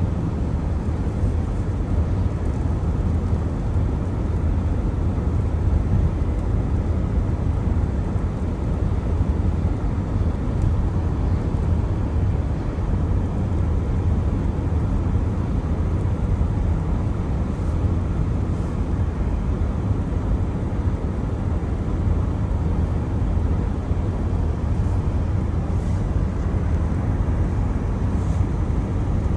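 Steady driving noise of a car on rain-wet roads: mostly a low rumble, with a fainter hiss above it and no change throughout.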